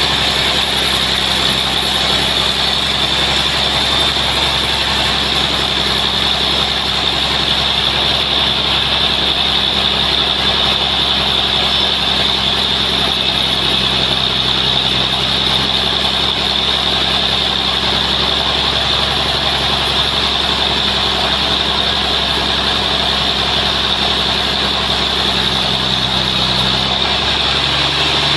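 Log sawmill running steadily on a large trembesi (rain tree) log: a low engine hum under a constant high-pitched whine and hiss from the saw. The highest hiss drops away near the end.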